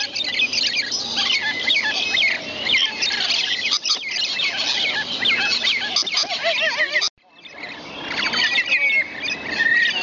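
A flock of lorikeets calling, with many short, high, squeaky calls overlapping without a break. About seven seconds in the sound cuts out abruptly, then fades back up.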